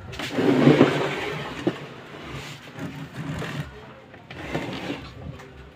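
Handling noise: a loud rustling scrape about half a second in, followed by scattered light knocks and rustles.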